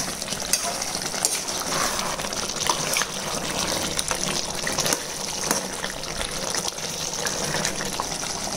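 Thick chicken curry simmering in a pan, bubbling and popping, with a ladle stirring through the gravy over a steady rushing hiss.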